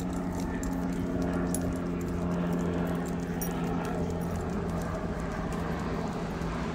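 Dogs on leashes walking along a concrete sidewalk: scattered light clicks and jingles from tags and claws, over a steady low mechanical hum.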